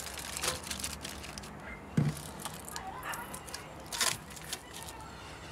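Aluminium foil packets crinkling and rustling as they are set on a metal drum grill's grate, with scattered light clicks. There is a dull knock about two seconds in and a sharp click about four seconds in.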